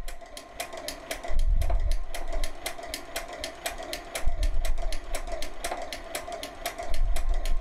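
Kettel linking machine sewing a chain-stitch seam through knitted fabric: rapid, even clicking, about six or seven a second, over a steady hum, with a low thump every few seconds.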